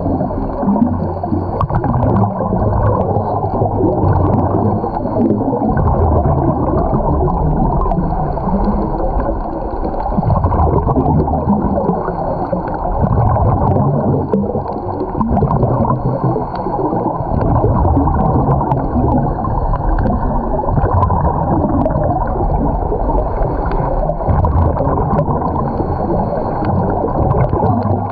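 Muffled underwater gurgling of scuba divers' exhaled regulator bubbles and water, heard through a submerged camera housing, swelling and easing every few seconds.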